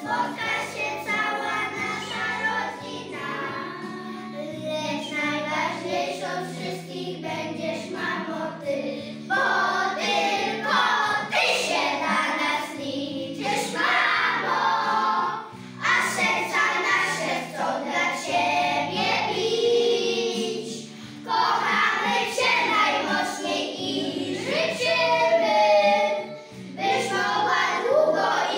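A group of young children singing a song together in unison over an instrumental accompaniment whose steady low notes change in steps beneath the voices.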